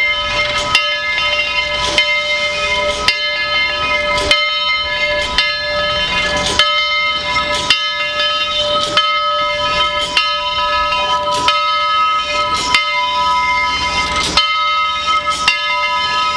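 Steam locomotive drifting slowly into a station with its bell ringing steadily, about one stroke every second or so, over steam hiss and the low rumble of the train.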